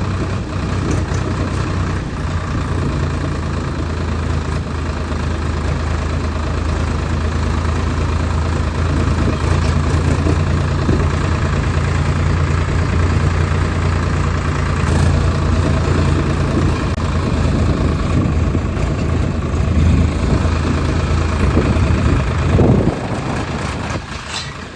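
Tractor engine running steadily at low revs with a deep, even hum; it fades away about two seconds before the end.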